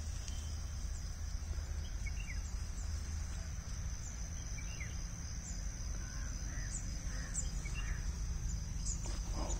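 Outdoor field ambience: a steady high insect drone with scattered short bird chirps, over a low steady rumble.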